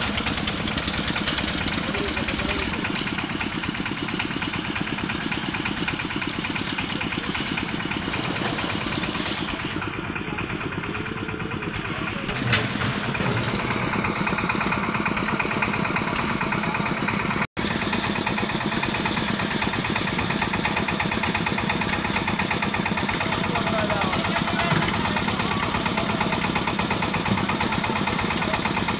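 Concrete mixer's engine running steadily, with an even pulse.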